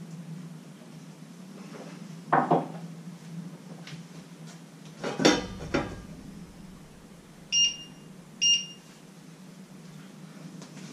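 Kitchen clatter over a steady low hum: a knock about two seconds in, then a utensil clattering against a frying pan around five seconds in. Two short electronic beeps about a second apart follow.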